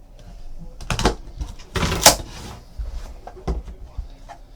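Handling noises as a trading-card box is opened: scattered rustles and knocks, the loudest a sharp knock about two seconds in.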